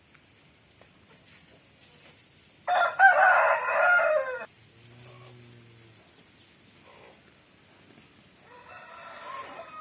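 A rooster crows once, loudly, about three seconds in, the crow lasting just under two seconds. A fainter, shorter call from a rooster follows near the end.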